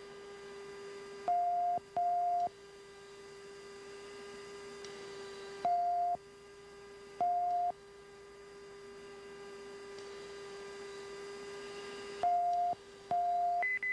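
Electronic cockpit audio tones from an F-16: a steady low tone runs under short, higher beeps that come mostly in pairs every few seconds. One briefer, still higher beep sounds at the very end. A faint hiss rises slowly between the beeps.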